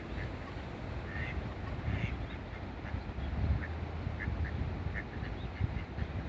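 Mallard hen and ducklings calling: a scatter of short, soft calls, a couple of fuller ones in the first two seconds and then a quicker run of brief ones.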